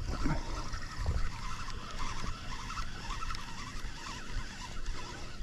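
Spinning reel being cranked steadily while a hooked fish is reeled in, over a steady low rumble of wind on the microphone.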